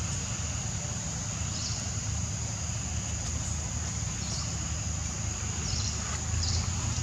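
Forest background: a steady high-pitched insect drone with a few short high chirps, over a steady low rumble.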